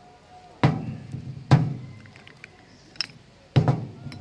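Large can-type electrolytic capacitors (100 µF, 100 V) being set down upright one by one on a paper-covered table: four dull thunks, the second and fourth the loudest.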